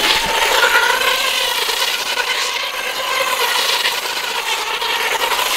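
Traxxas Stampede RC monster truck driving on packed snow and ice: a steady motor and drivetrain whine that wavers a little in pitch, over the hiss of the tyres.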